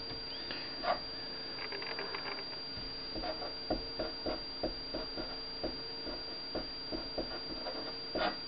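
Felt-tip marker writing on paper: a quick scratchy run of strokes about two seconds in, then a long string of short separate strokes and taps, a couple each second.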